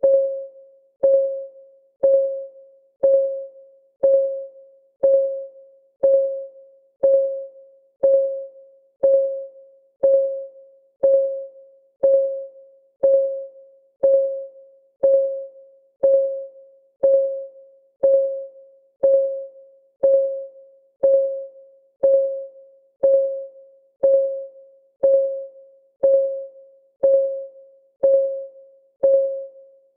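Countdown timer's ticking sound: a short, pitched tick that dies away quickly, repeating steadily once a second.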